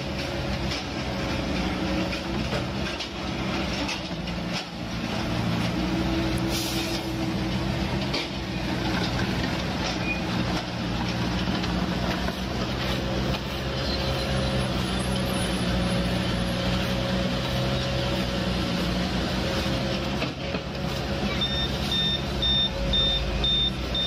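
Heavy diesel engines of an asphalt paver and the dump truck feeding it, running steadily at a constant note. About three seconds before the end, a reversing alarm starts beeping in an even, repeating series.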